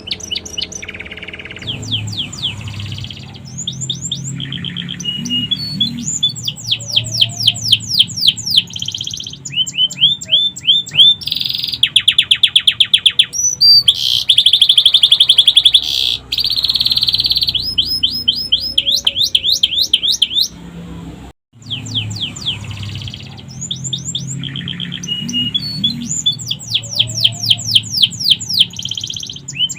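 Domestic canary singing a long, loud song of fast repeated trills and sweeping notes, its song filled with phrases copied from the sikatan londo, a flycatcher. The song breaks off for an instant a little after two-thirds of the way through, then carries on.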